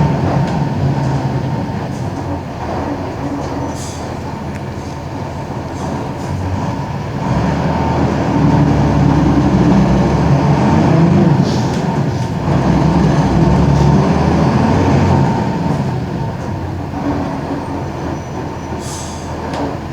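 Mercedes-Benz OF-1721 bus with its OM-366LA six-cylinder turbo-diesel engine running on the move. The engine gets louder under load about a third of the way in, then eases back off near three-quarters through, with a few faint squeaks and rattles.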